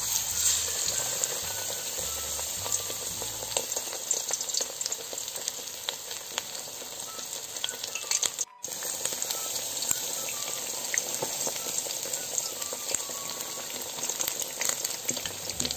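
Batter-coated perch frying in hot oil: a steady sizzle with dense fine crackling, starting suddenly as the fish goes into the oil. The sound breaks off for an instant about halfway through.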